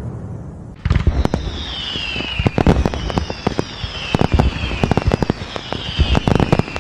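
Fireworks going off: a low rumble fades, then about a second in a dense run of sharp crackling pops starts suddenly, with whistles that fall in pitch repeating every second or two.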